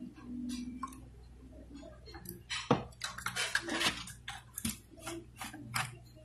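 Hard plastic paint-mixing containers being handled: a run of irregular sharp clicks and knocks starting about two seconds in and stopping near the end.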